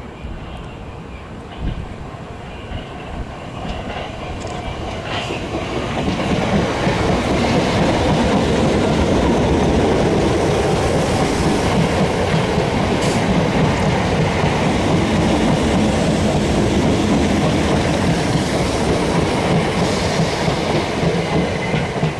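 First Capital Connect Class 319 electric multiple unit running through the station on the near track. The rumble of wheels on rail builds over the first six seconds, then holds loud and steady as the coaches pass, with wheels clacking over rail joints.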